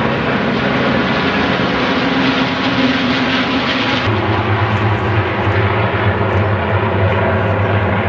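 Massed piston engines of a large formation of Second World War warbirds (Spitfires, Mustangs, Hurricanes and others) droning steadily overhead. About four seconds in the sound changes abruptly to a deeper, steadier drone.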